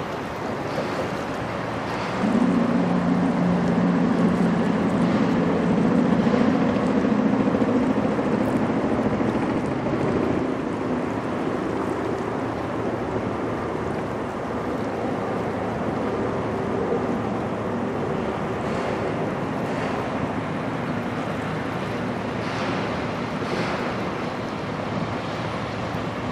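Wind buffeting the microphone over moving river water, with a low droning hum that starts suddenly about two seconds in and slowly fades after about ten seconds.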